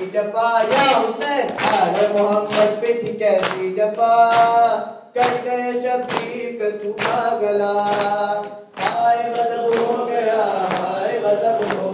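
A group of men chanting a noha lament in unison. The rhythmic slap of palms striking chests (matam) keeps the beat, a little faster than one strike a second. The singing breaks off briefly about five seconds in and again near nine seconds.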